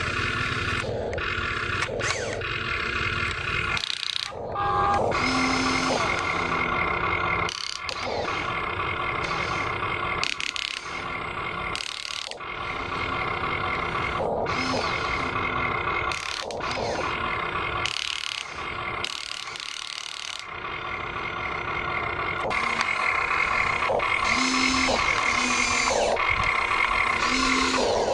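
Huina RC excavator's electric motors and gearboxes whining as its boom, arm and bucket dig soil, the whine starting and stopping with each move of the controls.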